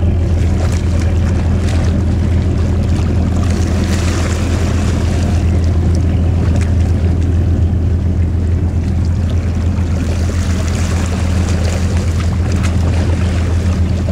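Steady low drone of a boat's engine running at speed, over the rush of water and wind noise on the microphone.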